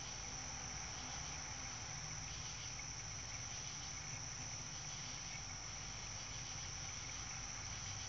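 Steady night chorus of crickets, one high continuous trill that never breaks.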